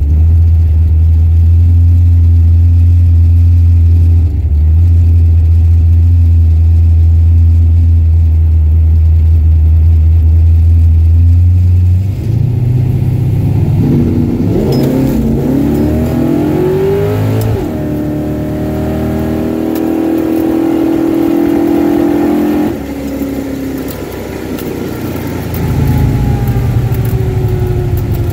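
Car engine heard from inside the cabin on a drag-strip pass: a loud, steady low idle while staged, then the revs climb with rising pitch, break once at a gear change, hold high for about five seconds and drop sharply as the driver lifts, with the pitch falling near the end as the car slows.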